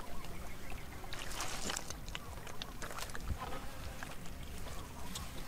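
Wet mud squelching and lightly splashing as it is stepped in and handled, with scattered sharp clicks over a low rumble.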